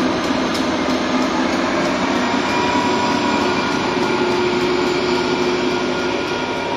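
Loaded stone train of a quarry line rolling past: steady, loud noise of wheels on rail, with a few faint steady tones over it and a light ticking near the start.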